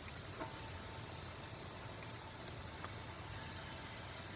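Steady hiss of rain falling, with a couple of faint light ticks.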